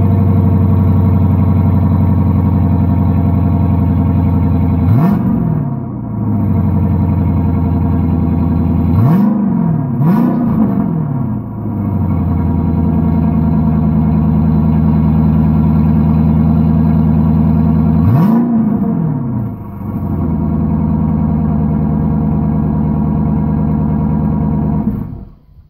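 2010 Dodge Charger R/T's 5.7-litre Hemi V8 idling through an exhaust with the mid muffler deleted but the resonators and catalytic converters still in place. It is blipped four times: once about five seconds in, twice in quick succession around ten seconds, and once more near eighteen seconds. The engine shuts off near the end.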